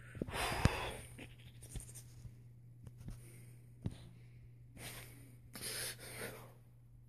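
Rustling and handling noise from a handheld phone being moved about, with a few sharp clicks, over a steady low hum. There is a burst of rustling in the first second and two more near the end.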